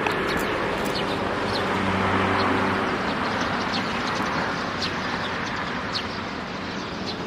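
A road vehicle passing: engine and tyre noise that swells over the first couple of seconds and then fades. Short bird chirps come and go throughout.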